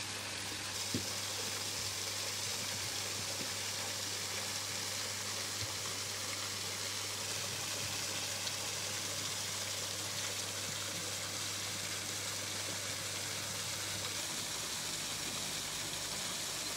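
Water running steadily in the otter enclosure, an even rushing noise, under a low hum that stops near the end.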